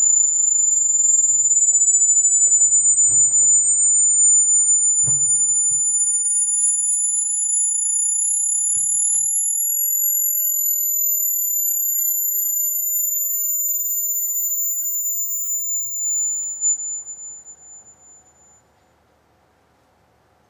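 Loud electronic high-pitched whine played as a stage sound effect: one steady tone held while a second slowly rises higher and higher in pitch, both fading away about three-quarters of the way through. A few faint thumps from the stage in the first half.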